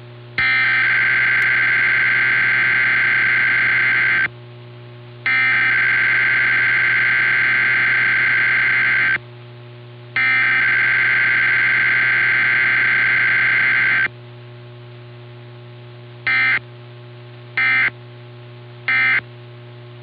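Emergency Alert System Required Weekly Test data bursts received over AM radio: three long, raspy SAME header bursts of about four seconds each, a second apart. After a pause come three brief end-of-message bursts about a second apart, over a steady low hum.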